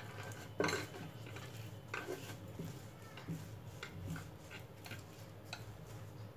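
Hands rolling a stack of dough sheets into a tight roll on a wooden board, with scattered light clicks and knocks; the loudest comes about half a second in.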